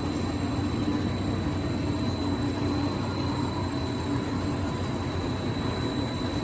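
DG75 dog chew-stick extruder machine running: a steady mechanical drone with a low hum and a constant thin high whine.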